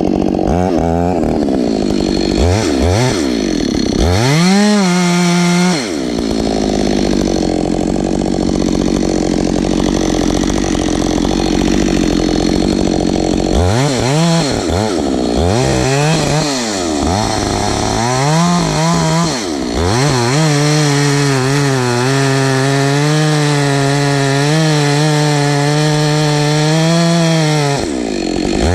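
Ported Husqvarna 572XP two-stroke chainsaw revved up and down a few times, settling to idle for several seconds, then blipped again and held at high revs for about eight seconds with slight wavering in pitch, as when cutting wood, before dropping off near the end.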